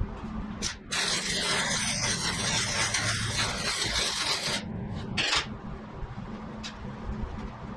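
Electric arc welding on a steel land plane: one weld run of about three and a half seconds of even hiss that starts and stops abruptly, with short arc strikes just before and about half a second after it, over a steady low hum.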